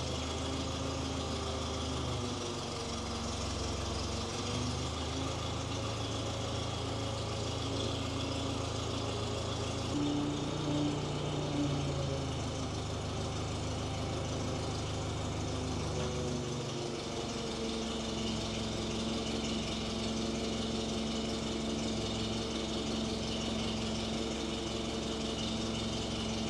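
Boom truck engine running to drive its hydraulic crane while the boom is worked by remote, the engine note and pitch shifting a few times as the crane functions change.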